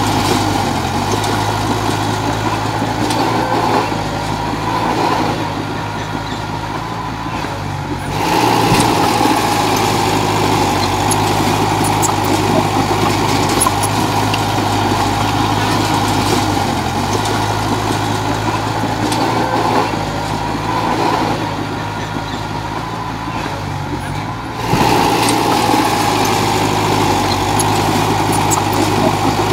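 Komatsu D31 bulldozer's diesel engine running steadily. It eases off about four seconds in, comes back up sharply about eight seconds in, and does the same again with a dip from about twenty seconds and a sharp rise near twenty-five seconds.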